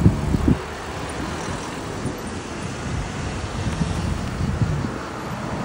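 Road traffic: a slow line of cars passing close by, engines and tyres making a low rumble. It is louder in the first half second, then steadier and lower.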